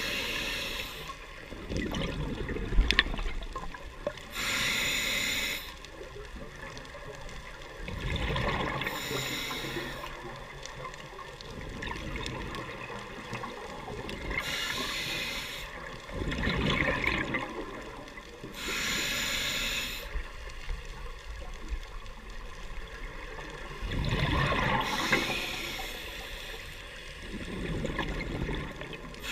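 Scuba diver breathing through a regulator underwater: a sharp hiss on each inhalation, about every four to five seconds, alternating with the rumbling gurgle of exhaled bubbles.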